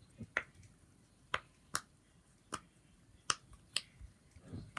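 Silicone pop-it fidget toy having its bubbles pushed through one at a time: about seven sharp pops at irregular intervals.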